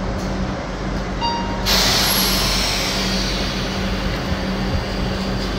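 Steady hum of a train standing at the platform. About a second and a half in comes a sudden loud hiss of compressed air venting, typical of a train's air brakes, which fades over the next few seconds. It is just preceded by a short beep.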